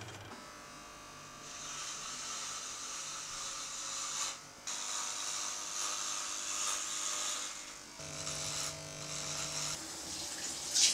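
Corded electric hair clippers buzzing as they shave hair off a head. The buzz changes abruptly about four and a half and eight seconds in.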